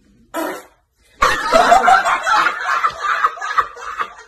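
A man laughing loudly and heartily, breaking out about a second in after a short vocal sound.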